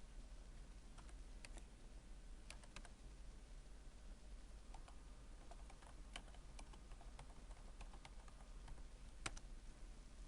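Faint, irregular clicks and taps of a computer keyboard and mouse, with one sharper click near the end.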